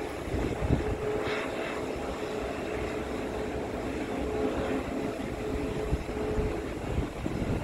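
Aircraft engine running with a steady hum, over an uneven low rumble like wind on the microphone.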